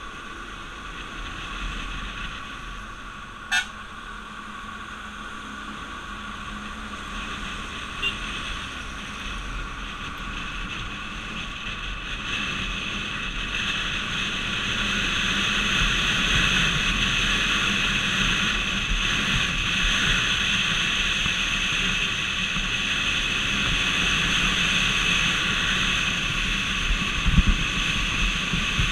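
Road and wind noise of a vehicle travelling along a highway, a steady rush that grows louder through the first half. There is a sharp click a few seconds in and a brief cluster of low thumps near the end.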